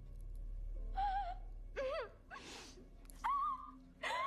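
A young woman whimpering in pain as a wound in her hand is stitched: several short, wavering, high-pitched cries with a sharp gasping breath between them.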